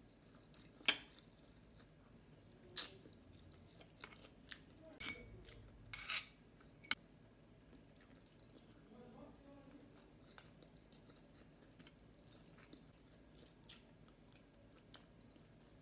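Close-up eating sounds of someone eating chicken and rice by hand: chewing and wet mouth clicks, with several sharp clicks in the first seven seconds, the loudest about a second in, then fainter ticks and chewing.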